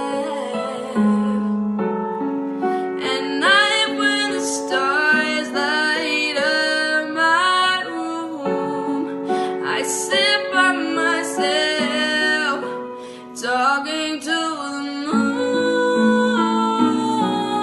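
A slow song: a female voice singing over piano accompaniment.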